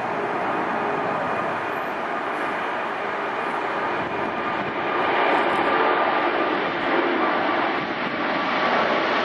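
Jet noise from an Airbus A380's four engines: a steady rushing sound with faint whining tones, growing louder about five seconds in.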